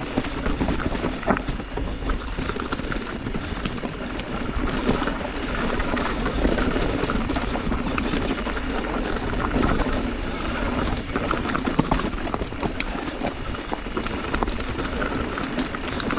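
Mountain bike rolling fast downhill over rocks and loose gravel: tyres crunching with constant small knocks and rattles from the bike, and a low rush of wind on the camera microphone.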